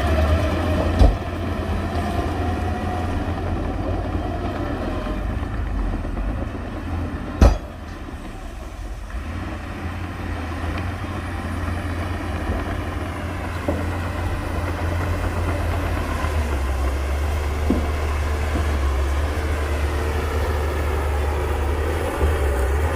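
Heavy diesel engine of earthmoving machinery running under varying load, its pitch wavering up and down. There is a sharp knock about a second in and a louder metallic bang about seven seconds in.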